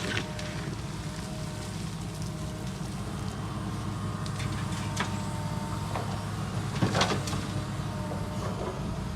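Diesel engine of a heavy construction machine running steadily, with a few sharp metal clanks, the loudest about seven seconds in.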